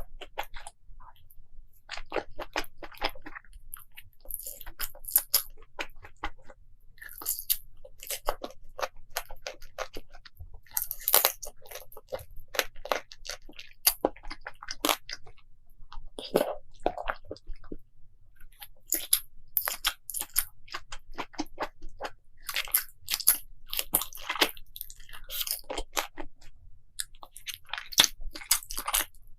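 Close-miked eating: crunchy bites and chewing, an irregular run of crackling crunches with short pauses between mouthfuls.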